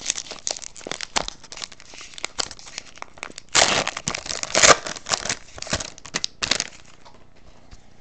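Foil trading-card pack wrapper crinkling and tearing as a pack is opened by hand, with a louder stretch of crackling about halfway through.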